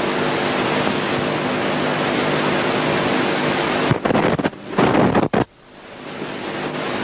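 Steady hiss with a low hum, typical of a worn archival tape or film soundtrack. About four seconds in it breaks into a few loud crackling bursts, then cuts out briefly before the hiss returns.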